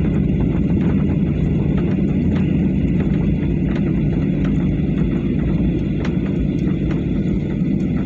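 Airliner cabin noise during landing: a steady low rumble of engines and airflow heard from inside the passenger cabin, with faint light rattles through it.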